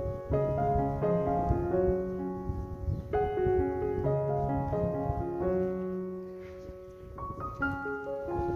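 Background piano music: a slow melody of held notes and chords.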